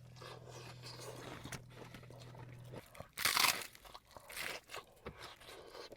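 A person chewing and crunching fried fish and chips, with a louder crunchy bite about three seconds in.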